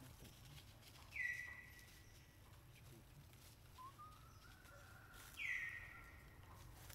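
Two high, thin animal calls about four seconds apart. Each drops quickly in pitch and then holds for about a second, with a fainter rising call between them, over a quiet outdoor background.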